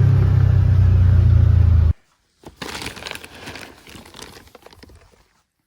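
A motor vehicle engine running loudly and steadily, cutting off abruptly about two seconds in. After a brief gap comes a quieter, rapid spatter of many small clicks that fades toward the end.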